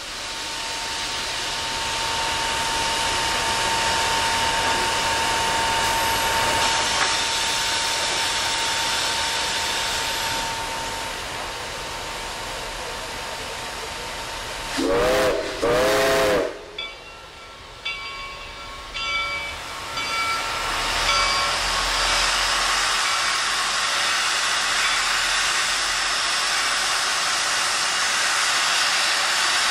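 Reading & Northern 425's 4-6-2 Pacific steam locomotive hissing steam, with two short toots of its steam whistle about halfway through and a few short ringing tones after them. Near the end comes a louder hiss of steam venting from the open cylinder cocks.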